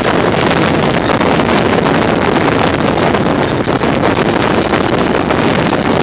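Wind rushing over a phone's microphone in a moving car, mixed with steady road and engine noise. Loud and even throughout, with no distinct events.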